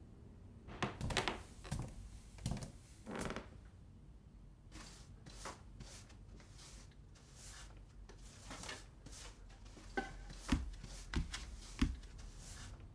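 Cartoon foley sound effects: a few soft swishes, then a run of short rustles, and about four soft thuds near the end.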